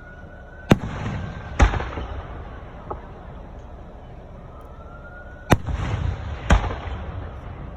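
Aerial fireworks: twice a rising whistle ends in a sharp bang, followed about a second later by a louder bang with rumbling after it. There is a small pop in between.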